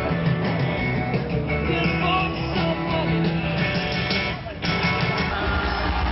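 Rock music with guitar and singing, with a brief dip in loudness about four and a half seconds in.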